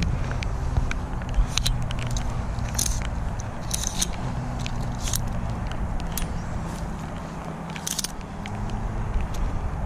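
Fishing rods, landing net and clothing being handled and carried at a walk on a grassy bank: scattered rustles and sharp clicks, loudest about three, four and eight seconds in, over a steady low rumble.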